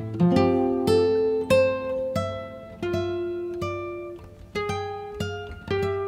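Background music: a melody of plucked string notes, each struck and then fading, about two notes a second.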